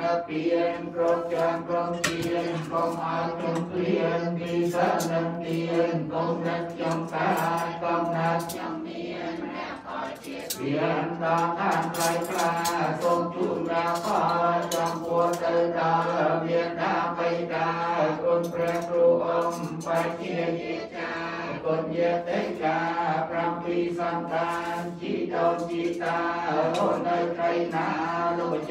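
Theravada Buddhist monks chanting Pali verses in unison: a steady, droning recitation on a near-constant pitch, with a short pause for breath about ten seconds in before the chant resumes.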